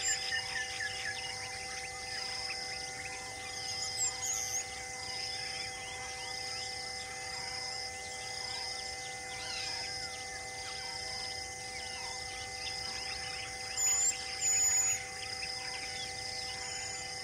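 Outdoor bird and insect chorus: a short high call repeats about once a second over a steady hum of even tones. Sharp, high bird chirps come about four seconds in and twice near the end.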